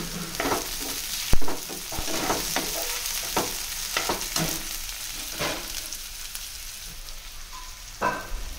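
Chopped onion and tomato sizzling in hot oil in a non-stick frying pan, stirred with a perforated steel spoon that scrapes and taps against the pan in short strokes. A single sharp knock about a second in is the loudest sound.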